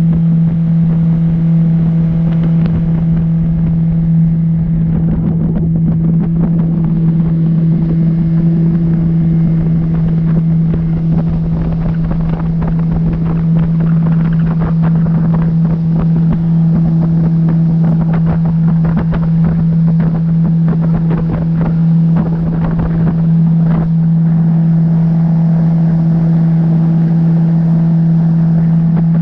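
Boat motor running at a steady speed, holding one even pitch, with wind buffeting the microphone and irregular knocks through the middle.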